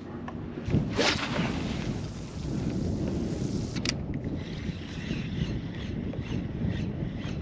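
Wind on the microphone and water lapping at a kayak, with a swish about a second in as a popper is cast on a spinning rod. A sharp click follows near the middle, then a faint, even ticking about twice a second as the popper is retrieved.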